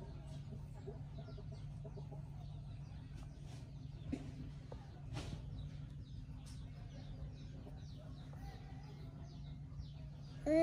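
Quiet outdoor background: a steady low hum with faint, scattered clucking of chickens. A soft click about four seconds in and a brief brushing sound a second later.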